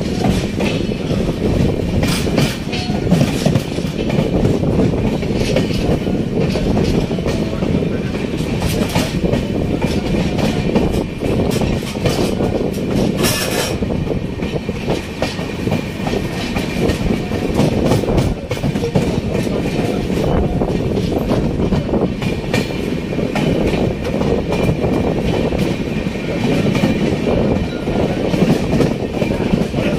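Moving Indian express passenger train heard from beside its coach: steady running rumble with the clatter of wheels over rail joints and points, and a brief louder rush about 13 seconds in.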